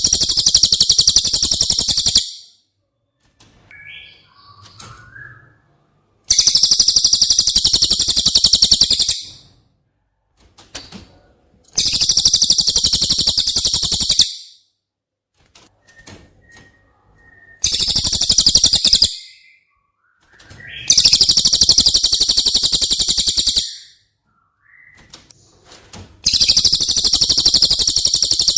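Cililin bird song: loud, very high, fast rattling trills of two to three seconds each, repeated about every five to six seconds, with faint short chirps in between.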